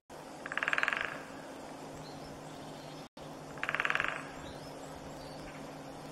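Great spotted woodpecker drumming on a dead tree stub: two short rolls of rapid strikes, about three seconds apart, each swelling and fading. Faint bird chirps sound in the background.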